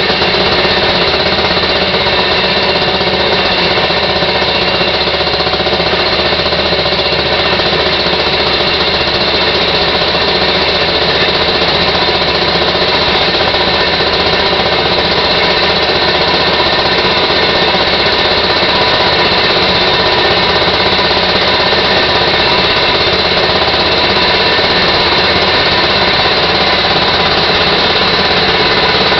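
Rail motorcar (speeder) engine running steadily and loudly with a rapid, even beat as the car climbs a mountain grade.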